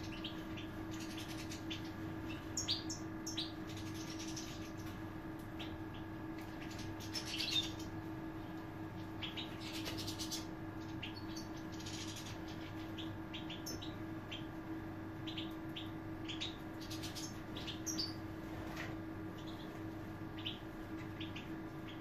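A flock of European goldfinches giving short, high chirping calls scattered throughout, with a few brief flutters of wings. A steady low hum runs underneath.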